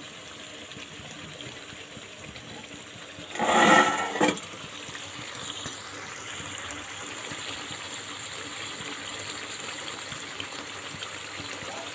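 Chicken masala cooking in a metal kadai on a gas stove, with a steady hiss throughout. A brief loud noise comes about three and a half seconds in, with a shorter one just after.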